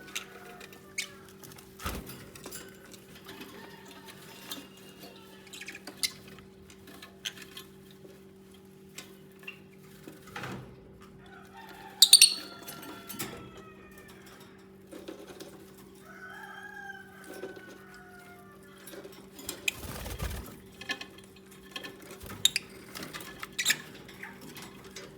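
Lovebirds chirping and calling in short, scattered bursts, with gliding calls, light clicks and taps, and one sharp loud squawk about halfway through. A steady low hum runs underneath, and there is a low thump near the end.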